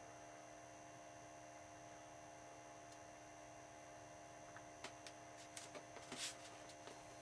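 Near silence: a steady electrical hum as room tone, with a few faint clicks and a short rustle in the second half.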